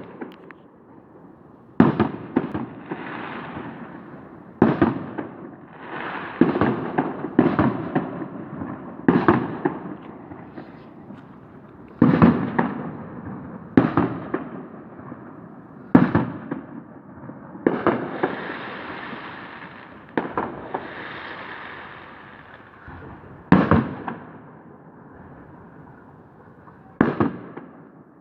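Fireworks display: aerial shells bursting with sharp bangs every one to three seconds, several of them followed by a few seconds of crackling.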